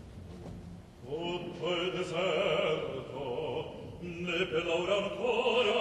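Operatic baritone singing an Italian recitative in a full voice with wide vibrato, coming in about a second in after a soft orchestral passage.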